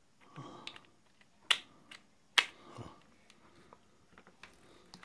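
Two sharp plastic clicks about a second apart, with handling rustle around them, as a plug-in power adapter is handled and fitted into a plug.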